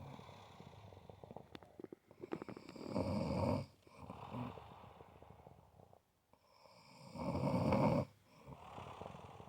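Snoring during sleep: two loud snores about four and a half seconds apart, with quieter breathing between them.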